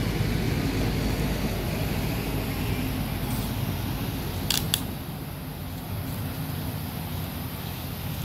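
Steady low rumbling background noise, with two sharp clicks in quick succession about halfway through.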